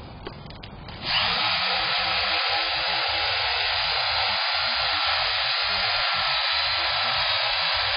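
Power drill spinning a scrub-brush attachment against a wet rug, a steady whirring scrub that starts about a second in and runs evenly.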